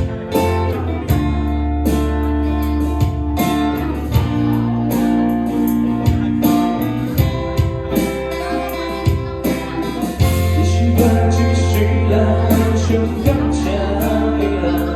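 A rock band playing an instrumental passage between vocal lines: guitars over bass guitar and a drum kit keeping a steady beat.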